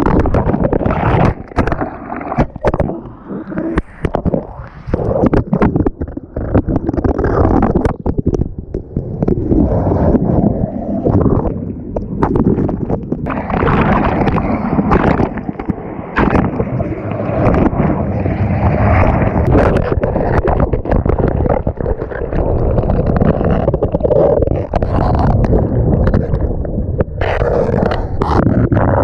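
Water rushing and gurgling around a loose GoPro in its waterproof housing as it is tossed around in the water-slide tube's jets, muffled, with frequent knocks as the camera hits the tube.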